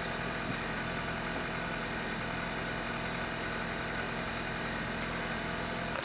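Kia Rio sedan's engine idling steadily.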